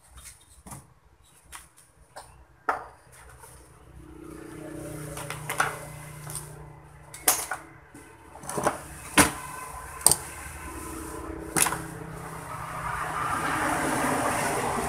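Clicks and knocks of an opened metal-cased set-top box being lifted, turned and handled on a wooden workbench, several sharp knocks in the middle. A steady background rumble builds and is loudest near the end.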